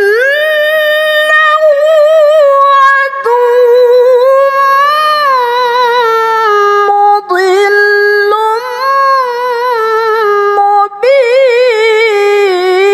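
A woman's voice reciting the Quran in the melodic tilawah style: long held notes with wavering ornaments that climb and fall, broken by a few short breaths.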